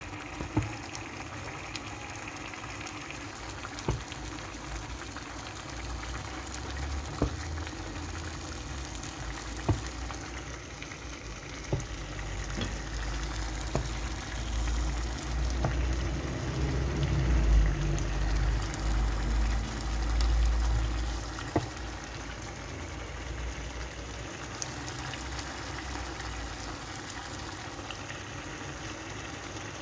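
Food cooking in a pan on the stove, a steady bubbling hiss, with a few sharp knocks of a utensil and a low rumble for several seconds around the middle.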